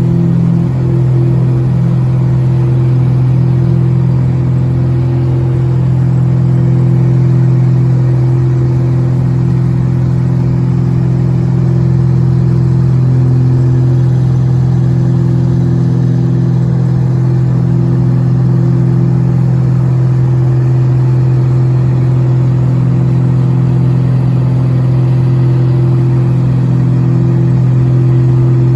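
Propeller engines of a small eight-seat passenger plane droning inside the cabin during takeoff: a loud, steady hum.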